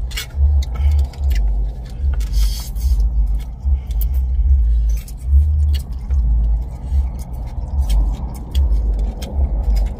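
Eating sounds: chewing and slurping of chow mein noodles, with plastic forks clicking against styrofoam takeaway boxes, over a low, uneven rumble.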